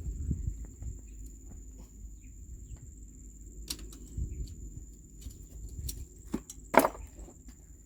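Steady high-pitched insect drone over a low rumble, with scattered light clicks and knocks; the loudest is a short knock about seven seconds in.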